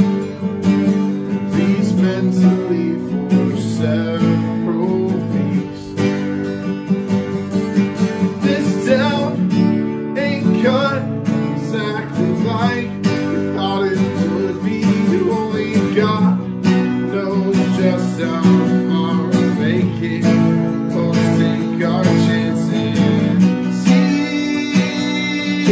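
Two acoustic guitars strummed together, playing a song, with a man's voice singing over them in parts.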